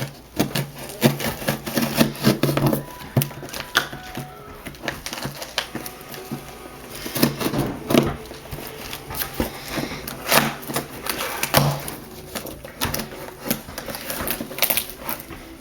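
A package being opened by hand: irregular crackling, tearing and rustling of cardboard and packaging, with a steady low hum underneath.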